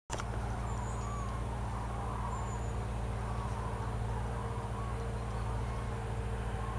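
A high flock of common cranes calling: a scatter of short, rising-and-falling trumpeting calls, heard over a steady low hum.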